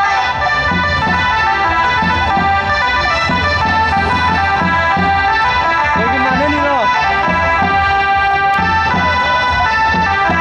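Ramwong dance music: an accordion-toned melody playing sustained notes over a steady, even beat.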